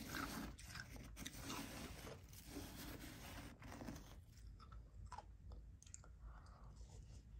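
Close-miked chewing of a mouthful of soft, powdery ice: a dense, crackly crunching in the first few seconds that grows quieter and sparser after that.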